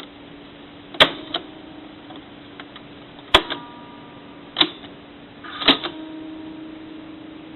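JVC HR-4100 portable VHS recorder's tape mechanism running with a steady hum, broken by four sharp mechanical clunks as its controls are switched, some followed by a brief whirr as the transport changes mode.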